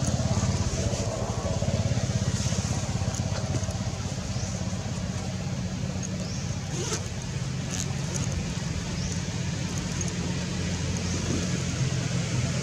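A steady, low engine rumble, as from a motor vehicle running nearby.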